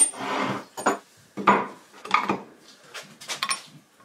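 Handling noises of steel hardware on wood: a bolt, pin and washer clinking and knocking against hardwood beams as they are set into holes, with a brief scrape at the start and a series of separate clinks after it.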